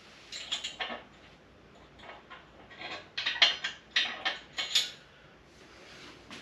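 Scattered light metal clinks and knocks from handling the steel folding legs and hinge points of a Pittsburgh 1-ton foldable shop crane. They come in two clusters, one about half a second in and a busier run from about three to five seconds.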